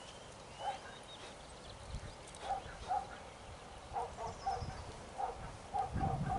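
Short animal calls repeated at irregular intervals, with a few small-bird chirps early on and a low rumble rising near the end.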